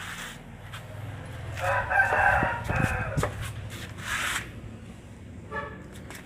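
A long, loud animal call lasting about a second and a half, followed by a shorter call and then a faint brief one near the end.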